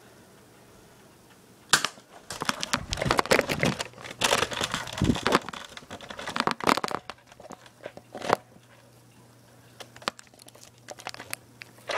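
Rustling and scuffling handling noise: the recording phone being jostled and rubbed against clothing amid a scuffle. Sharp clicks and knocks come about two seconds in and again near the end.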